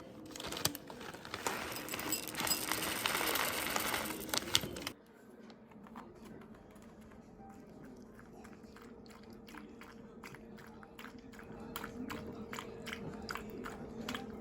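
A dog chewing and crunching something hard, a quick irregular run of crisp crunches through the second half. Before that comes a loud rushing rustle that cuts off abruptly about five seconds in.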